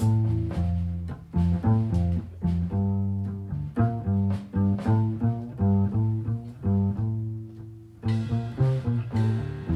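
Live small-group jazz with the upright double bass to the fore, plucked pizzicato in a run of separate low notes, while archtop electric guitar chords and light drums play behind it. The music thins out briefly about eight seconds in, then comes back brighter.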